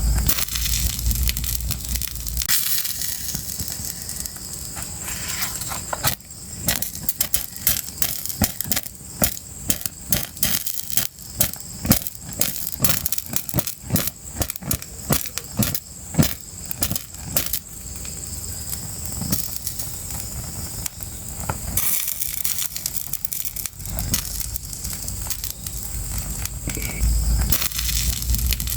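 Fire crackling, with many sharp snaps and pops over a steady hiss, busiest in the middle. A low rumble sits under it at the start and again near the end.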